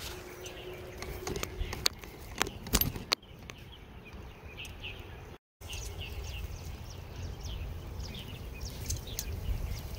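Wood campfire crackling, with sharp pops in the first few seconds, while birds chirp in short repeated calls and a low rumble runs underneath. The sound cuts out briefly twice, around three and five and a half seconds in.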